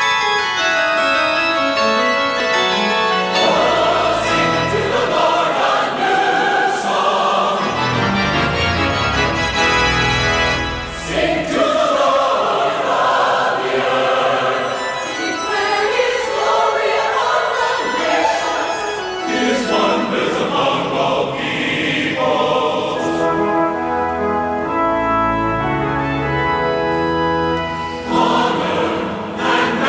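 Choir singing with organ accompaniment. In the first few seconds the bells of a carillon are still ringing out before the choir comes in.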